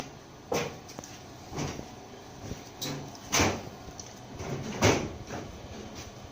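Sharp clunks and knocks from die-cutting circles out of beer-mat board, about half a dozen at uneven intervals, with the loudest near the middle and near the end.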